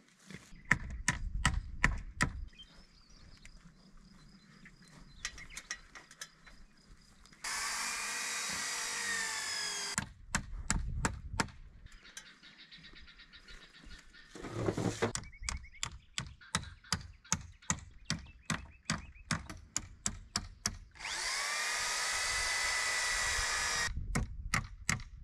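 Hammer blows nailing rough wooden poles together, in quick runs of sharp knocks. Twice, about 8 s and 21 s in, a power drill whirs for a couple of seconds, its pitch bending as the motor speeds up and slows under load.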